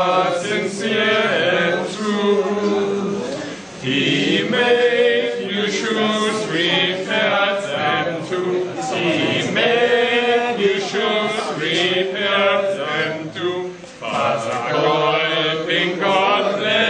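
A small group of men singing a song together without instruments, with brief breaths between lines about 4 and 14 seconds in.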